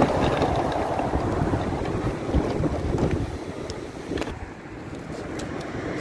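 The small plastic wheels of a Henry vacuum cleaner rattling and rumbling over brick paving as it is dragged along by its hose, with wind buffeting the microphone. The rumble eases a little about four seconds in.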